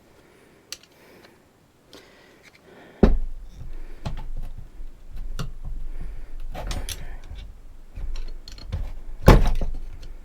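Parking brake parts being pushed and worked into place by hand: knocks and clicks with rubbing and handling noise. After a quiet start, a loud knock comes about three seconds in, and another near the end.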